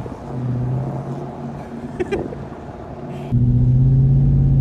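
The LS1 5.7-litre V8 engine of a VN Commodore running with a steady low drone, with some wind. About three seconds in, the drone jumps abruptly louder and steadier.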